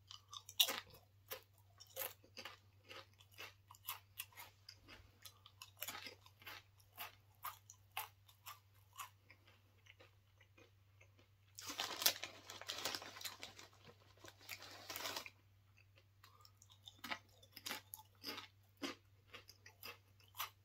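Crisp crunching and chewing of a tortilla chip, sharp crunches a few times a second, with a few seconds of the chip bag rustling about halfway through.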